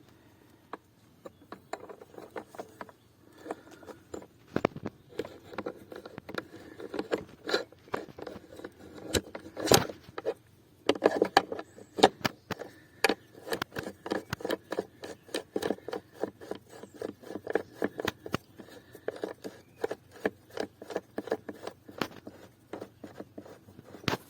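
Metal tools and motorcycle wheel parts clinking, knocking and scraping in a long run of sharp clicks, with one louder knock about ten seconds in and rapid, closely spaced clicks through the second half.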